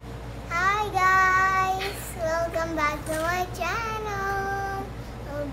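A young child singing a wordless tune in long, held notes that slide up and down in pitch.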